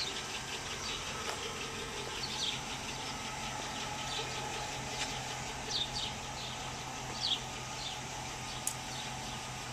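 GMC Yukon SUV idling with a steady low hum, with a few short, high, falling bird chirps over it.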